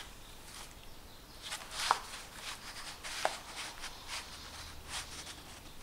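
Cardstock pages and cards of a handmade paper scrapbook album being handled: light paper rustles and scrapes, with a sharper scrape about two seconds in and another a little after three seconds.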